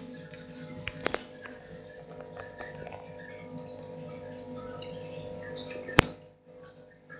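Steady low hum with faint scattered ticks, a click about a second in, and a sharp click at about six seconds, after which the sound drops away.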